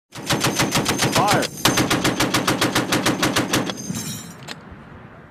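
M2 Browning .50-calibre heavy machine gun firing long bursts at about eight rounds a second, with a short break about a second and a half in. The firing stops near four seconds, one last single shot follows, and the echo fades.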